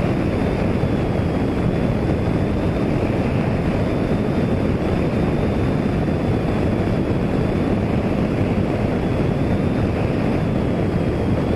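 Strong wind buffeting the microphone: a loud, steady, low rushing noise.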